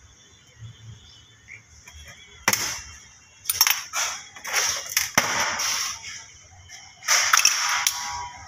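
Small metal diesel fuel injector parts being handled, clicking and clinking against each other and against a stainless steel bowl. There are a few faint taps at first, then a string of sharp metallic clicks with brief ringing from about two and a half seconds in.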